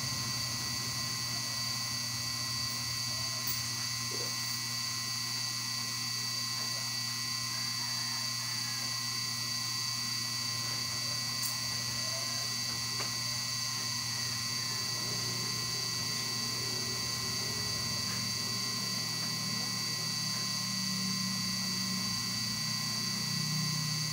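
Steady electrical hum with a constant high-pitched whine over an even hiss.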